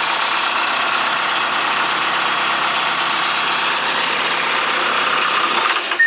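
Vermeer BC1000 brush chipper's engine running steadily, close to the machine. It cuts off abruptly just before the end.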